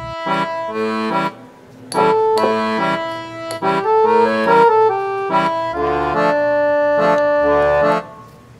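Background music: a light instrumental melody in short, evenly paced notes, with brief breaks about a second and a half in and near the end.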